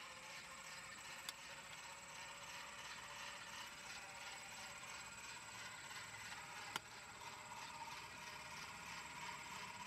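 1910s E. Paillard & Co. spring-motor (clockwork) fan running, its brass gear train whirring with a fast, even ticking. Two sharp clicks, a faint one about a second in and a louder one about seven seconds in.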